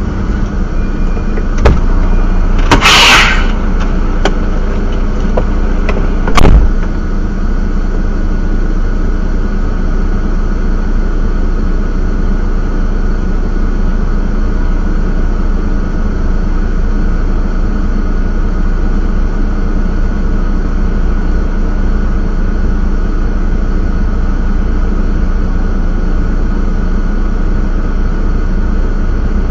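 Truck's diesel engine idling steadily, heard from inside the cab, with a short loud hiss about three seconds in and two sharp knocks, the louder one about six and a half seconds in.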